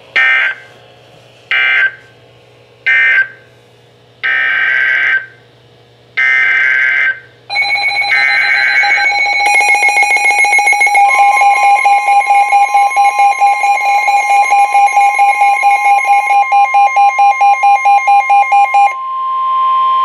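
NOAA Weather Radio SAME digital data bursts, short screechy warbling blasts: three short ones, then longer ones. Then several Midland weather radios go into their tornado-warning alert alarms, rapid pulsing beeps, and from about eleven seconds in the broadcast's steady warning alarm tone sounds under them until just before the end.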